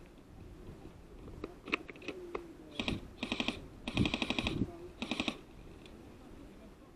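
Airsoft guns firing fully automatic: four short bursts of rapid clicking shots, about fourteen a second, after a few single clicks.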